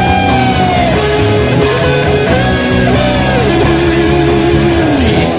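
Rock music, instrumental: a guitar plays long held lead notes that bend in pitch over a steady band backing.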